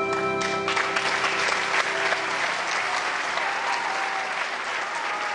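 A sustained musical chord ends about half a second in and an audience breaks into applause. The clapping is dense and steady, with a few faint voices rising over it later on.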